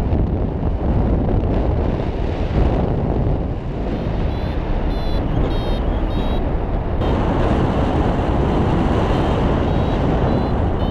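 Airflow buffeting the camera microphone of a paraglider in flight, a steady low rumble throughout. From about four seconds in, runs of short high beeps come and go, a variometer's climb tone signalling lift.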